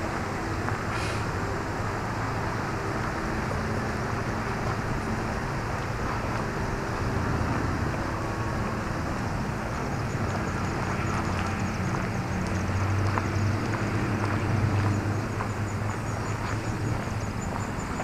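Steady low rumble of distant vehicle engines, swelling a little about three-quarters of the way through.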